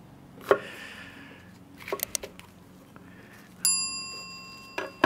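A kitchen knife knocking and tapping on a wooden cutting board while chopping chillies: one sharp knock about half a second in, a quick run of taps around two seconds, and another knock near the end. A bell-like ding starts suddenly a little after three and a half seconds and rings down over about a second and a half. It is the chime of an on-screen subscribe-bell animation.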